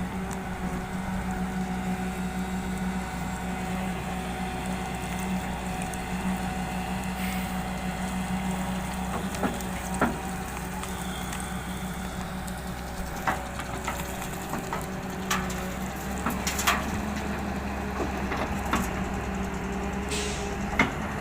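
Diesel engine of a JCB excavator running steadily, with a few short, sharp knocks and clanks, mostly in the second half, from the machine working gravel.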